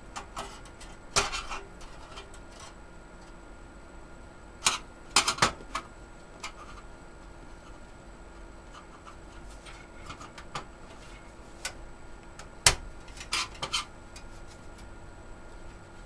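Sheet-metal clicks and taps as a stamped I/O shield plate is pressed and snapped into a PC case's rear opening, coming in scattered clusters, the sharpest click about three quarters of the way through. A faint steady hum runs underneath.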